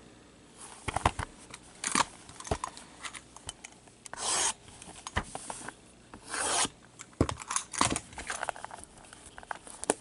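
Cardboard trading-card hobby boxes handled and their shrink wrap cut with a box cutter: scattered clicks and taps, with two short scraping swipes about four seconds and six and a half seconds in.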